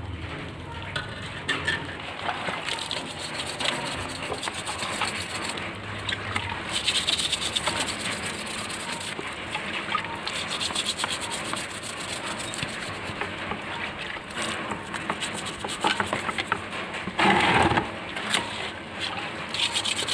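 Repeated rubbing and scrubbing strokes of a hand working over a green bamboo culm to clean its surface, with one brief louder scrape near the end.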